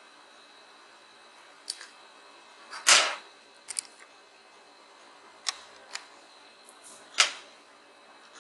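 About six short, sharp clicks and knocks from handling a TV's LED backlight strip and tweezers while the replacement LED sits on melted solder. The loudest knock comes about three seconds in, and another near the end.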